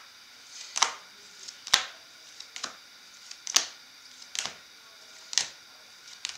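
Trading cards being handled one at a time: a sharp card snap about once a second, seven in all.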